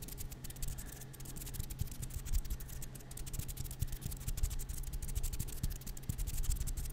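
Fast ASMR hand sounds: fingers fluttering and rubbing close to the microphone, a rapid, dense run of small clicks and scratches.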